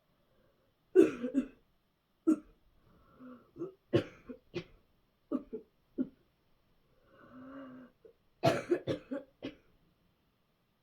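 A person coughing hard in repeated fits of short coughs. The loudest clusters come about a second in and again near the end, with single coughs and a longer drawn-out sound between them.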